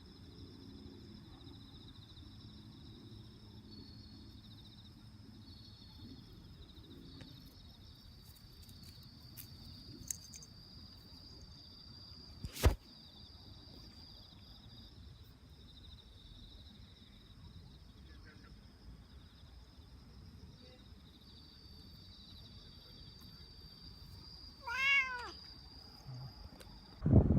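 Mostly quiet background with a steady high-pitched whine. A single sharp click comes about halfway through, and a cat meows once near the end, the call rising and falling in pitch.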